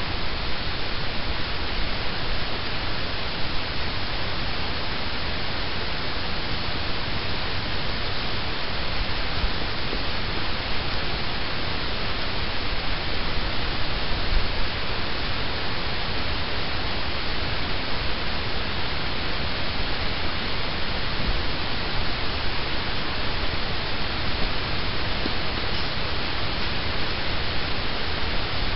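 Steady wind noise on the camera microphone: an even hiss with a low, fluttering rumble underneath.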